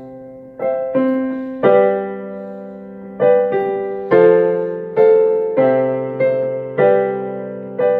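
Piano playing slow chords, each struck sharply and left to ring and fade before the next, about one to two a second.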